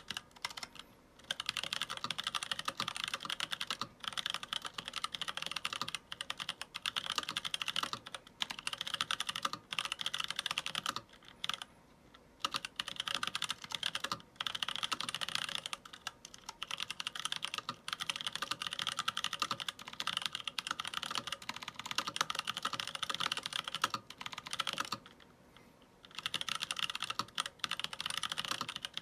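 Fast continuous typing on a mechanical keyboard with unlubed NovelKeys Blueberry tactile switches and PBT keycaps: a dense run of keystroke clacks, broken by three short pauses.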